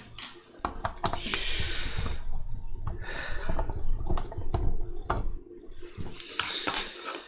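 Small screwdriver clicking and scraping against the plastic case of an XM-18 incubator controller as the screws on its back are taken out, with rustling handling noise and scattered sharp clicks.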